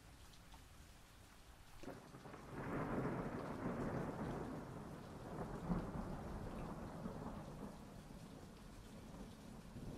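Steady rain with a long roll of thunder that starts about two seconds in, swells within a second and slowly fades over the next several seconds.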